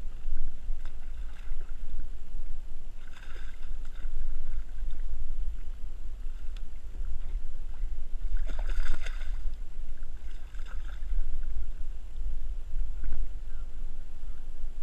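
Water splashing beside a boat hull as a hooked snook thrashes at the surface, in short bursts about 3 s in, near 9 s (the loudest) and near 10.5 s. A steady low rumble of wind on the microphone runs underneath.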